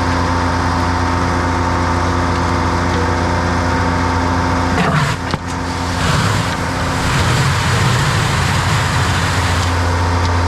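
DAF combi gully tanker running with a steady engine hum. About five seconds in the sound breaks briefly, then carries on with a rougher low rumble.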